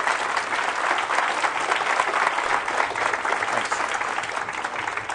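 Audience applauding, a dense steady clapping that begins to taper off toward the end.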